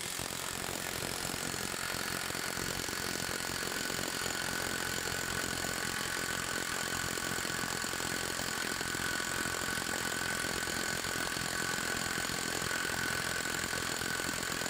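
Lagatuns cordless impact wrench hammering without a break against a bolt that is not turning, with a steady high motor whine over the rapid blows, as it builds torque in a sustained 15-second run. It cuts off at the very end.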